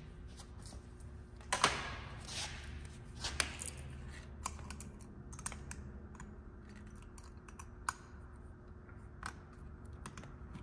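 Irregular light metallic clicks and scrapes of steel feeler gauge blades being handled and slid into the gap inside a K-series transmission case, checking differential shim clearance. The sharpest click comes about a second and a half in.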